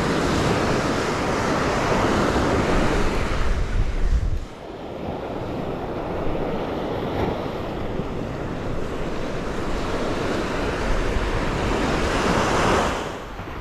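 Gulf of Mexico surf washing onto the beach, with wind buffeting the microphone in a deep rumble. The noise swells and eases, drops off sharply about four and a half seconds in, and builds again near the end.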